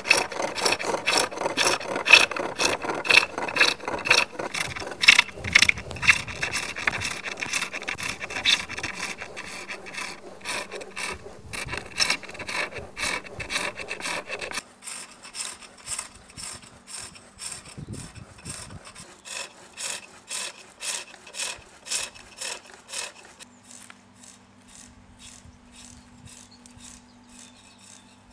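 Turning tool cutting a wooden stool leg on a foot-powered pole lathe: a steady rhythm of scraping cuts, about two a second, each time the treadle drives the wood round against the blade. The cuts grow fainter after about twenty-three seconds.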